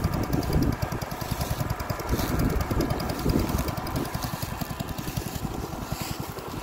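Toro small engine on a Planet Junior walk-behind garden tractor running steadily, with a fast, even firing beat.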